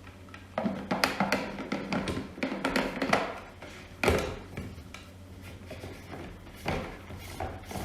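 Plastic knocks and clatter as the reverse osmosis filter cartridges are handled and fitted onto the unit. There are several separate sharp knocks over a faint steady low hum.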